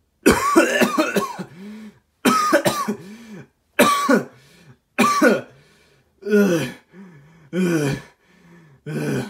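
A man's voice giving a string of coughs and throat-clearing sounds, about seven separate bursts roughly one a second.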